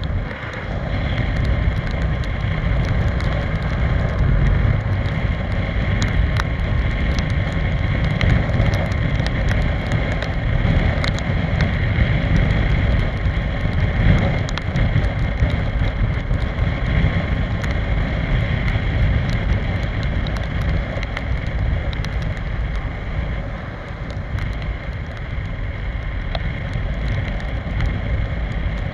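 Steady wind rush and rumble from riding a Piaggio X Evo 125 scooter at speed on a wet road, with wind buffeting the microphone.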